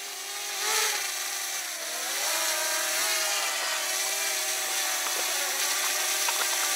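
Quadcopter drone flying close overhead, its propellers giving a steady buzzing whine that wavers in pitch in the first two seconds, then holds steady.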